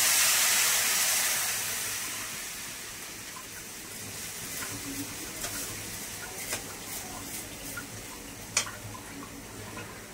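Water poured into a hot pan of fried vermicelli and grated coconut, hissing loudly at first and dying down over the next few seconds. Then a metal spatula scrapes and clicks against the pan as the vermicelli is stirred, with one sharp clack near the end.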